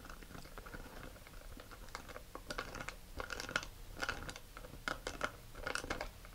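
Hobby knife point twisted back and forth in the thin clear plastic of a vacuum-formed model rocket transition, boring a hole: faint, irregular scratchy crunching strokes, coming in quick clusters through the second half.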